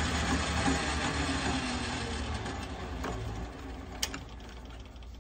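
A manual Logan metal lathe running with its steady motor and gear whir, then switched off and spinning down over the second half, its hum dying away. A single sharp click sounds about four seconds in.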